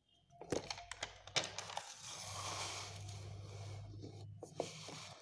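Quiet handling noise: a few sharp clicks in the first second and a half, then a soft, paper-like rustle for about two seconds, over a faint steady low hum.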